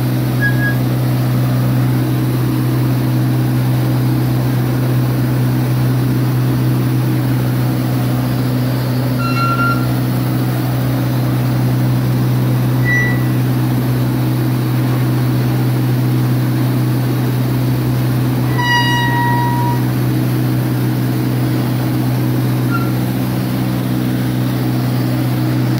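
A steady low mechanical hum that holds an even pitch throughout, with a few short, high-pitched toots or beeps scattered through it. The longest of these comes about two-thirds of the way in.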